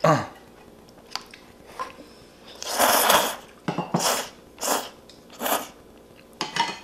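Person slurping thick udon noodles from spicy seafood noodle soup: one long loud slurp about three seconds in, followed by several shorter slurps, with small mouth clicks between.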